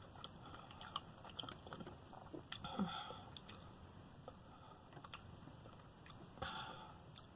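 A person chewing food close to the microphone, faint, with scattered small wet clicks and smacks of the mouth.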